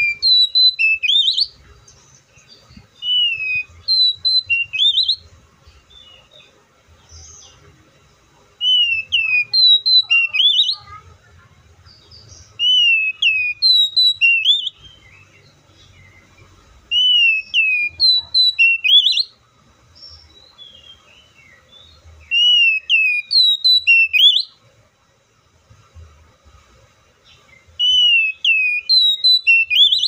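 Oriental magpie-robin singing: about seven loud phrases of clear whistled notes, each sliding down and then sweeping sharply up, repeated every four to five seconds with short pauses between.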